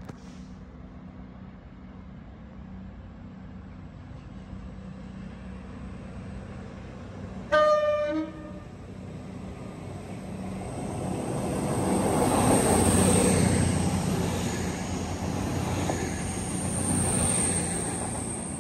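A Class 220/221 Voyager diesel train sounds a short horn blast of under a second, then passes. Its noise builds over a few seconds to a peak and stays loud, swelling again near the end.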